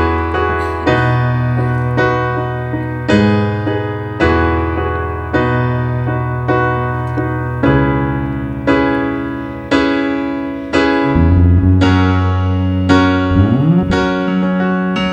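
Piano playing an instrumental introduction, striking a chord about once a second and letting each one ring and fade. Around eleven seconds in, sustained low bass notes join it.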